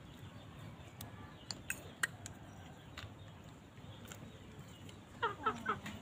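Chickens squabbling: a short run of calls near the end. Under them are faint, scattered clicks of a fork against a plate.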